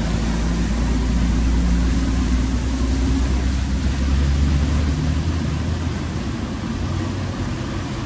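Floodwater rushing across a street, with a low engine rumble from cars pushing through it; the rumble eases about five seconds in.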